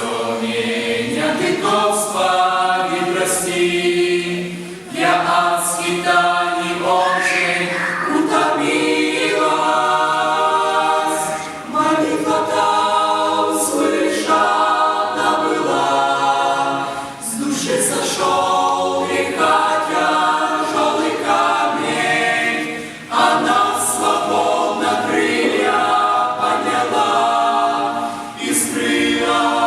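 A youth choir singing a hymn a cappella, in several voice parts, in phrases a few seconds long with short breaths between them.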